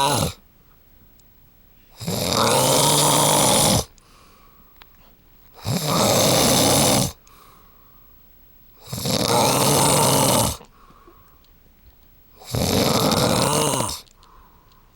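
A man snoring in his sleep: four loud snores in a steady rhythm, about one every three and a half seconds, each lasting a second or two with quiet between.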